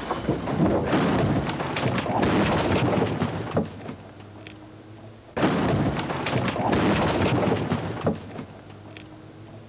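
A car rolling over on sand and gravel: two stretches of crashing and scraping with repeated thuds, the second starting abruptly about halfway through.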